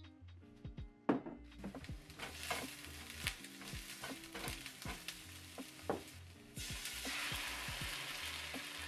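Cubed eggplant frying in hot oil in a skillet, sizzling, with tongs clicking against the pan; a sharp clack about a second in as the eggplant goes in. About six and a half seconds in, canned whole tomatoes hit the oil and the sizzle turns louder and steady. Soft background music plays underneath.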